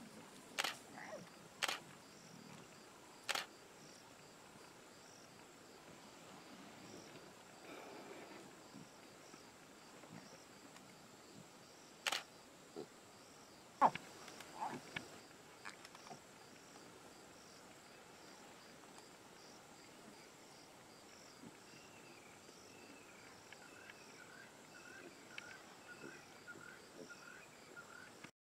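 Faint outdoor grassland ambience: a steady high insect drone throughout, with a handful of sharp clicks in the first half, the loudest about 14 s in. In the last several seconds a bird calls repeatedly with short, falling notes.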